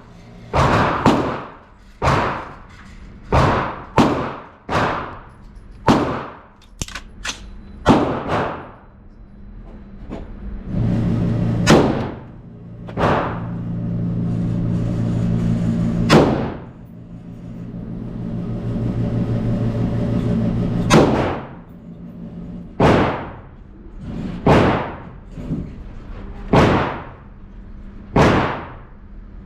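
Semi-automatic AR-15-pattern rifle fire: a long string of single shots at an uneven pace, each a sharp crack with a short ringing tail. A low, steady musical drone sounds under the shots from about a third of the way in to about two thirds.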